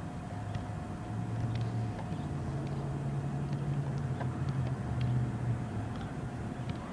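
Low engine hum of a passing motor vehicle, swelling for a few seconds and then fading, with a few faint taps of a soccer ball being juggled.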